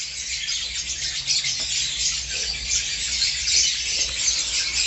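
A flock of small birds chattering and chirping continuously: a dense, high twittering with no pauses.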